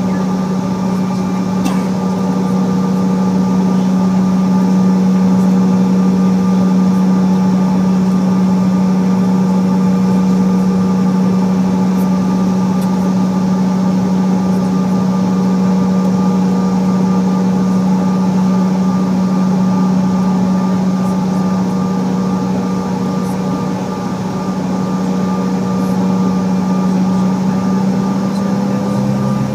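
A CRJ-700's twin General Electric CF34 turbofans heard from inside the cabin, running at a steady idle hum during taxi. Near the end the pitch begins to rise as the engines start to spool up for takeoff.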